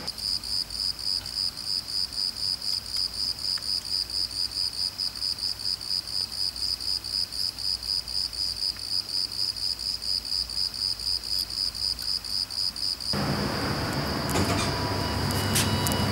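Crickets chirping in a steady, rapid pulse of about four chirps a second, one high tone. The chirping cuts off abruptly about 13 seconds in and gives way to a louder steady rushing noise with a few clicks.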